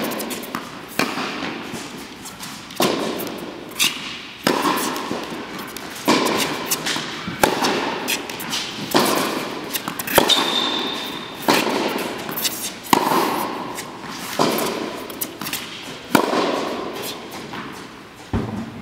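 Tennis rally on an indoor hard court: sharp pops of the ball struck by the rackets and bouncing on the court, about one every second or so, each ringing with the echo of the large hall.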